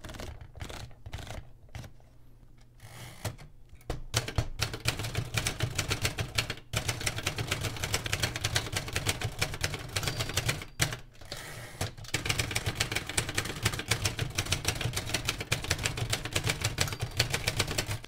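Remington Rand Model 1 noiseless manual typewriter: a few scattered clicks at first, then rapid, steady typing from about four seconds in, broken by a couple of brief pauses. Its noiseless action pushes the type slugs onto the platen rather than striking it, so the keystrokes are soft clicks rather than loud smacks.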